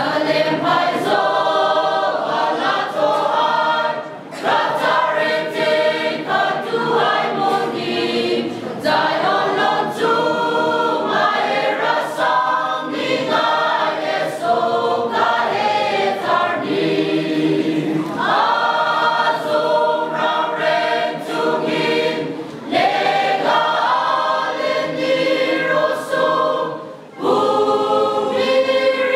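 A mixed choir of women and men singing together, with brief breaks about four seconds in and near the end.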